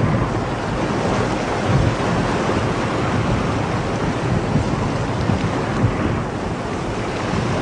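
A steady, even rushing noise with a low rumble underneath.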